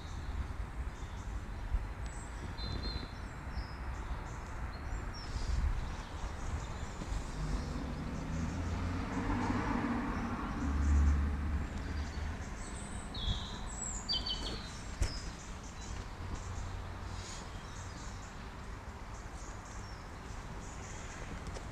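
Small birds chirping now and then over a steady low outdoor rumble that swells briefly around the middle.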